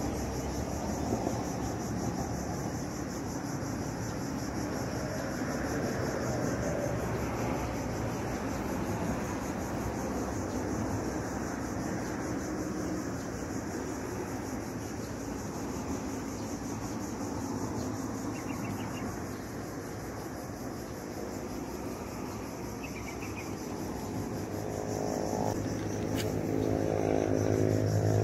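Steady outdoor background hum with a high, even insect drone. Near the end an engine grows louder as it approaches.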